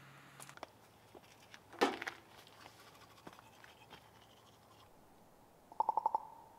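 Hands handling a packet with small crinkles and clicks, and a short rip as it is torn open about two seconds in. Near the end a bird gives a quick rattling call of several rapid notes.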